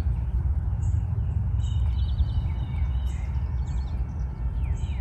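Low, uneven outdoor background rumble with birds chirping over it: many short high chirps, and a few quick falling notes near the end.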